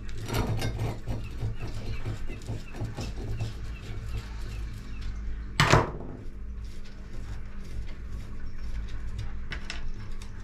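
Small metallic clicks and scrapes of a nut, metal washers and a worn seal being worked off the end of a bait pump's plunger rod by hand, with one sharp knock a little over halfway through.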